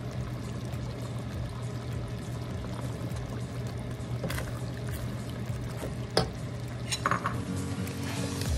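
Creamy sauce simmering in a wok while a plastic spatula stirs it, with a few short scrapes and taps of the spatula against the pan.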